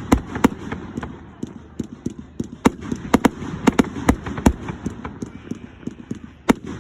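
Fireworks bursting in a rapid, irregular string of sharp bangs. They come thickest from about three to four and a half seconds in, thin out after that, and pick up again near the end.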